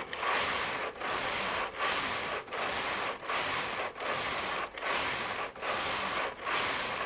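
Brother KH-950i knitting machine carriage pushed back and forth along the needle bed, knitting rows of Fair Isle: a steady rushing rasp on each pass, broken by a short gap each time it reverses at the end of the row, about nine passes in quick succession.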